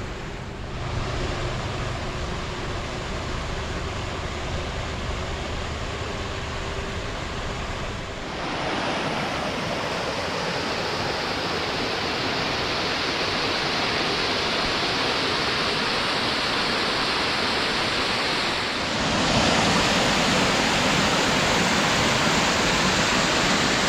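A creek's tumbling rapids and small waterfalls rushing steadily, louder in two steps: about a third of the way in and again near the end.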